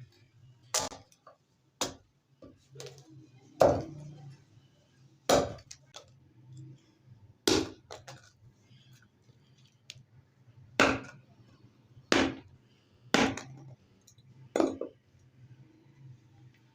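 Single blows of a hand tool in a blacksmith's workshop: about nine sharp, short knocks at uneven intervals of one to three seconds, over a faint steady low hum.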